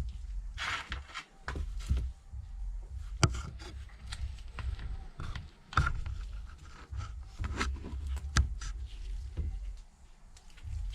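Small parts and tools being handled during a tablet repair: scattered sharp clicks and taps with brief scraping between them, over a low steady hum.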